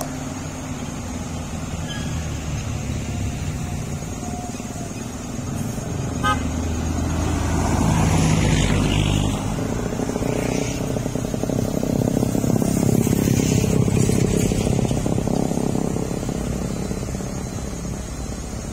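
Road traffic passing close by: engines of cars, a light truck and a motorcycle running steadily and growing louder twice as vehicles go past, with a short horn beep about six seconds in.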